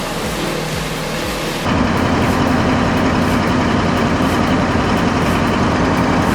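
A steady, even noise that is cut off abruptly about a second and a half in by a louder heavy engine running at a steady speed.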